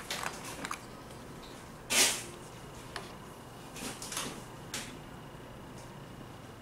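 Small jars and tools being handled on a nail table as a jar of nail glitter is opened and picked from: light clicks at first, a short scrape or knock about two seconds in, then softer clicks and rustles near four to five seconds.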